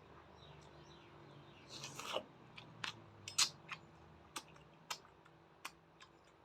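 Close-up eating sounds of a person chewing: a brief rush of noise about two seconds in, then a string of sharp, crisp mouth clicks and crunches, roughly one every half second.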